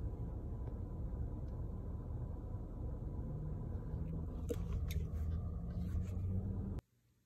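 Low steady rumble of a car heard from inside the cabin. A few clicks and rustles of the phone being handled against the door come about four to six seconds in, and then everything cuts off suddenly.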